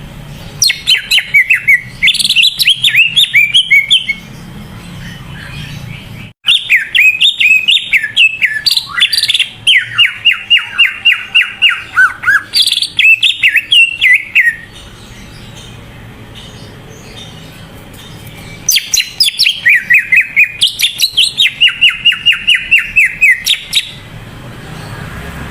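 Green leafbird (cucak ijo) singing vigorously, in three long bouts of rapid, repeated chirping notes that sweep up and down, separated by short pauses.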